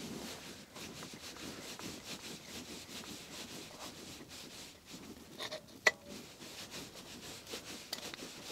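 Faint rubbing and handling as the bearing-installation tool inside a Cannondale Headshok telescope tube is turned to take up a little tension, with one sharp click about six seconds in.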